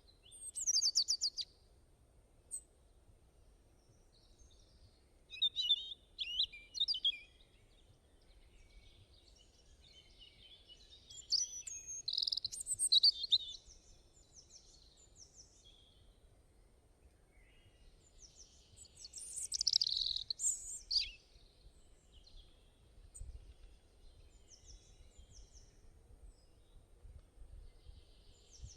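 Small birds chirping and singing in short, high phrases a few seconds apart.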